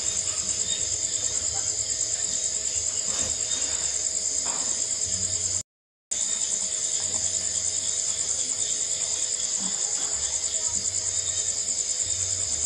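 Crickets chirring steadily in a dense, finely pulsing high trill. The sound cuts out completely for about half a second near the middle.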